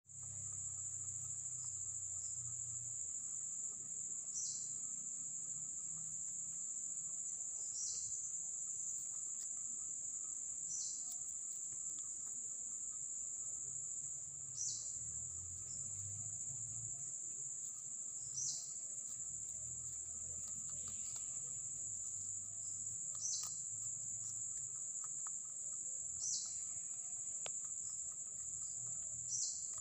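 Outdoor insects trilling in one continuous high-pitched drone, with a short call that falls in pitch repeating about every three to four seconds, and a fainter, lower steady trill underneath.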